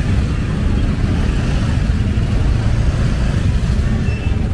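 Steady low rumble of motor traffic, with motorcycle engines running close by.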